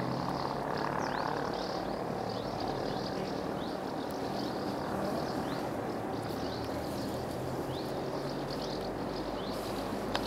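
Steady low drone of a distant engine over a faint outdoor hiss, with a small bird giving short high chirps every second or so.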